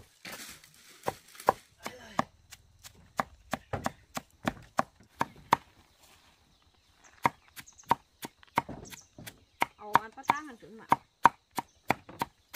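Machete chopping bamboo shoots, a steady run of sharp strokes about two a second, with a short pause about six seconds in.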